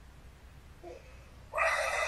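Quiet room tone, then about a second and a half in a person starts a loud, raspy, breathy vocal noise that is not words.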